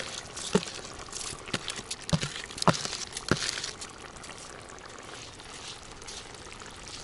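Wet rice poured and scooped into a cast-iron kazan of simmering broth, with about six sharp clicks of a metal skimmer against the bowl and pot over the first few seconds. After that only a steady hiss of the simmering liquid.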